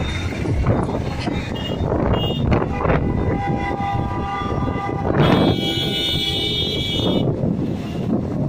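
Vehicle horns sounding in traffic over a constant rush of wind and road noise. A few short toots come in the first couple of seconds, then one long horn blast from about three seconds in, followed straight after by a higher-pitched horn held for about two seconds.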